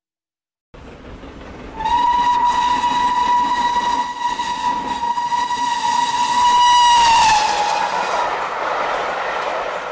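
A steam locomotive whistle blowing one long, steady note for about five seconds, sagging in pitch as it shuts off. Train noise runs under it and carries on after it.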